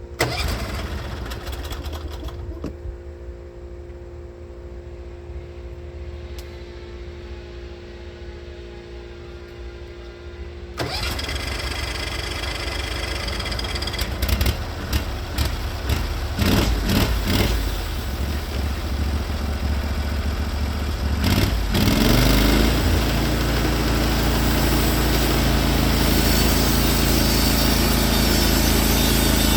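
Norwood HD36v2 portable sawmill's gas engine being started: a louder mechanical noise sets in about 11 seconds in, and about 22 seconds in the engine note rises and settles into a steady run.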